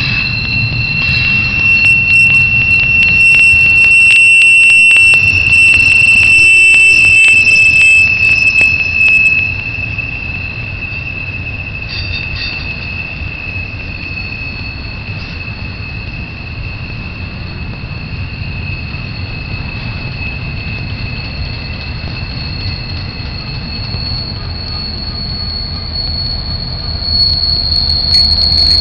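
Double-stack intermodal freight train rolling past, its cars rumbling low while wheels squeal in long steady high tones, loudest in the first ten seconds. Near the end the sound swells as the train's diesel locomotives come by.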